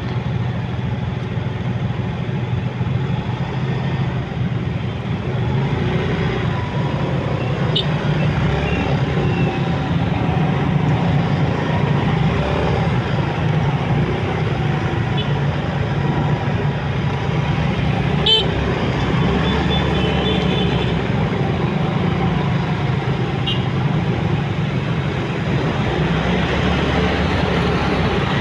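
City motorcycle traffic: a steady low drone of motorcycle and scooter engines, first waiting at a light and then pulling away, with a few short horn toots from nearby vehicles.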